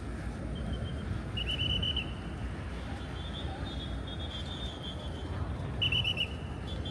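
Steady low rumble of outdoor background noise with several short, high-pitched trilled chirps, the loudest a quick run of about four pulses near the end.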